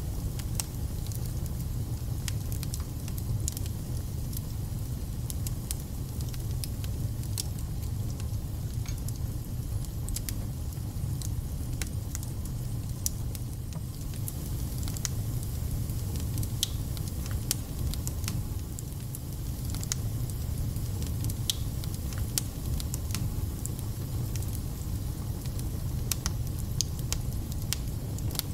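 Wood logs burning in a fireplace: a steady low rumble of the flames, with frequent sharp crackles and spits from the burning wood.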